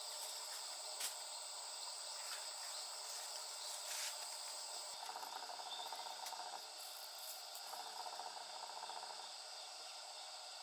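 Crickets and other insects chirring steadily at a high pitch. Twice, from about halfway through, a lower, rapidly pulsing call joins in for a second or two.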